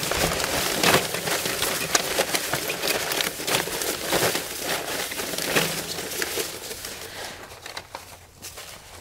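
Folded paper slips rustling and sliding against each other as a hand stirs them around in the metal bowl of a kettle grill, a busy crinkling full of small clicks that dies down over the last few seconds.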